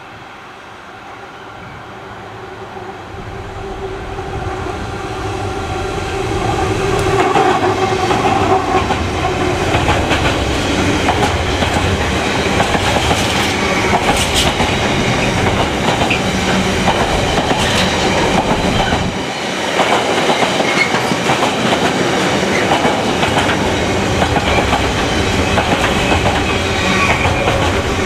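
Freightliner Class 70 diesel locomotive, with its GE PowerHaul V16 engine, approaching and passing, its engine note swelling to a peak about seven seconds in. It is followed by a long container train's wagons rolling past with a steady clickety-clack of wheels on the rails.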